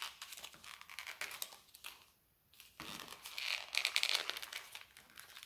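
Plastic lure packet crinkling and rustling with small sharp crackles as it is torn open by hand. It goes quiet for a moment about two seconds in, then the crinkling is densest just past the middle.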